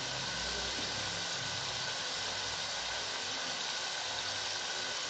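Tomato-paste masala with freshly added ground spices sizzling and bubbling in oil in a kadai: a steady, even hiss.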